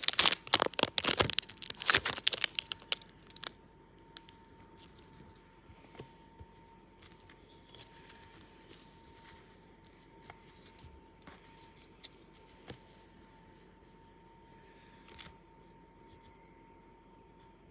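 A hockey card pack wrapper being torn open and crinkled, loud and crackly for the first two seconds or so. It then gives way to quiet handling with scattered small clicks, over a faint steady hum.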